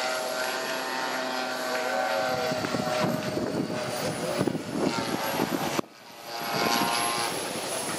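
Radio-controlled aerobatic model airplane in flight, its engine and propeller droning with the pitch shifting as it manoeuvres. A rough rumbling noise joins in a few seconds in, and the sound drops out suddenly for a moment near the end.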